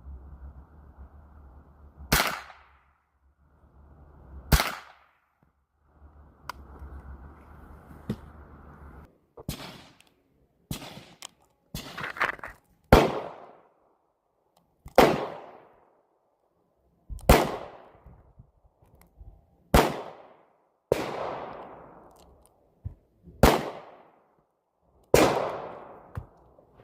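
Gunshots on an outdoor firing range: about fifteen shots, sparse at first, then every second or two from about nine seconds in. Each shot rings out briefly, and fainter pops come between the loud ones.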